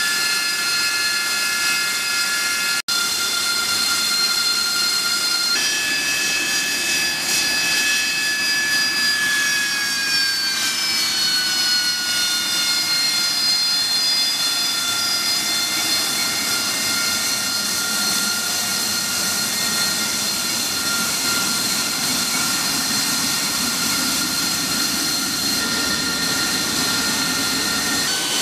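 AV-8B Harrier II's Rolls-Royce Pegasus turbofan running on deck: a steady high, many-toned whine over a rushing noise. The whine shifts once about five seconds in and sinks slightly in pitch around ten seconds in. The sound cuts out for an instant about three seconds in.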